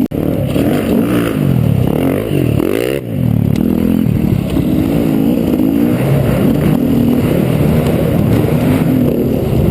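Trail bike engine revving up and down as it is ridden over rough ground, its pitch rising and falling in repeated sweeps, then holding steadier with small surges.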